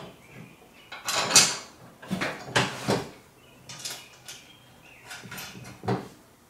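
Bolts, lock washers and metal parts of a tow-behind sprayer being handled and fitted: several separate clinks, knocks and scrapes with quieter gaps between them.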